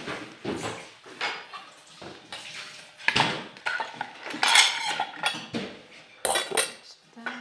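Dishes, metal bowls and cutlery clinking and knocking: irregular clatters, some with a short metallic ring, the loudest about halfway through and again near the end.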